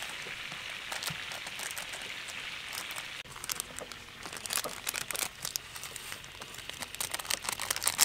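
Small plastic sauce sachets crinkling as they are handled, torn and squeezed out, a rapid scatter of crackles from about three seconds in; before that only a steady hiss.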